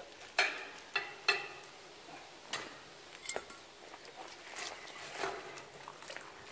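Sharp metallic clinks and knocks with a short ring, three close together in the first second and a half, then a few more spread out. The sound is a hauled-up magnet-fishing catch and its gear knocking against a metal railing.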